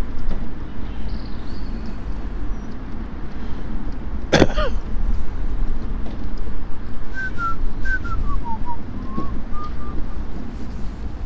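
Low, steady rumble of a mobility scooter riding along, with one short sharp sound about four seconds in. From about seven seconds, a short run of clear whistled notes stepping down in pitch.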